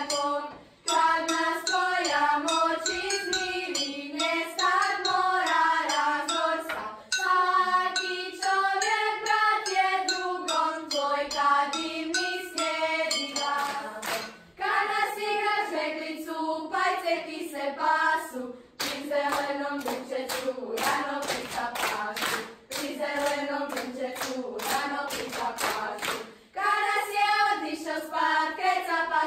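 A teenage school choir singing a song together. About halfway through, the singers start clapping along in time, then drop back to singing alone near the end.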